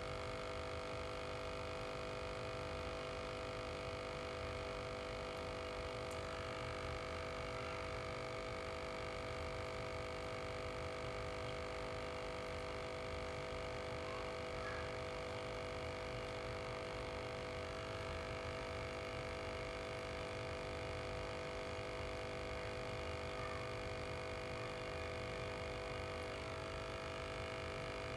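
Aquarium air pump humming steadily, an even electric buzz made of several steady tones that does not change.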